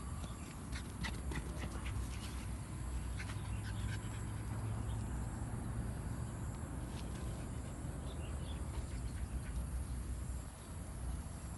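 Small short-haired dog's sounds, with a quick run of short clicks in the first few seconds over a steady low rumble.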